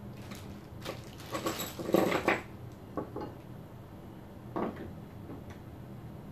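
Plastic bag of steel bolts and nuts being handled: rustling and metal clinking in a cluster of short bursts about a second in, then a few single clicks.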